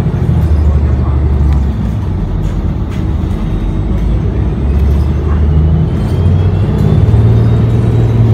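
A New Flyer XDE40 hybrid diesel-electric city bus heard from inside the cabin while under way: a low engine and drivetrain drone that shifts in pitch, with road noise and light cabin rattles. A faint whine rises in pitch over the last few seconds.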